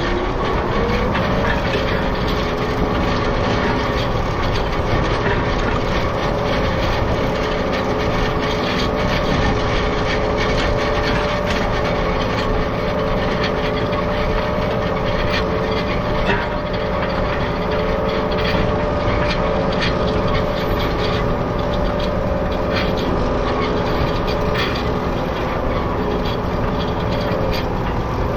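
International Harvester 1586 tractor's diesel engine running steadily under load, with a steady whine over it and light clatter. Its pitch rises slightly about a second in and drops again near the end.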